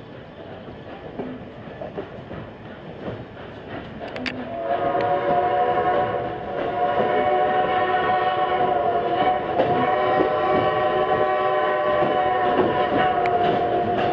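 Rail cars rolling with clicking over the rail joints, then about four and a half seconds in, the steam whistle of locomotive No. 90 sounds a long chord-like blast that dips briefly and carries on loudly.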